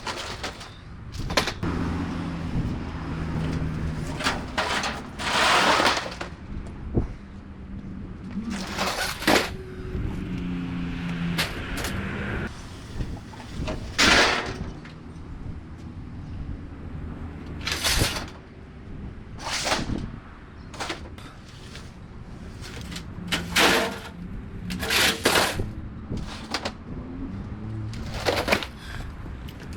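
Yard debris being handled and stacked by hand: irregular knocks, clatters and scrapes, some a few seconds apart and some in quick clusters, over a low steady hum.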